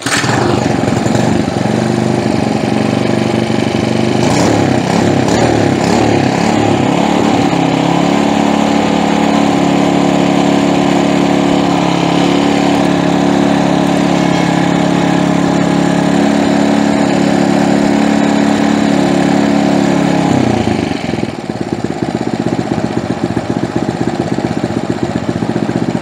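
Earthquake Versa tiller's 99cc Viper single-cylinder engine running after carburetor repair. The note is ragged for several seconds, then settles into a steady run. About twenty seconds in it drops to a quieter, rougher running.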